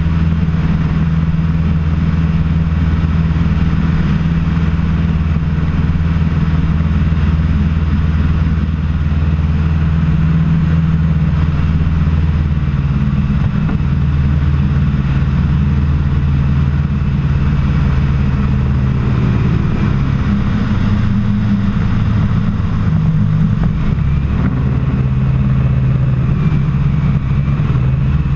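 Challenger II ultralight's engine and propeller droning steadily in cruising flight, the engine note shifting slightly a few times.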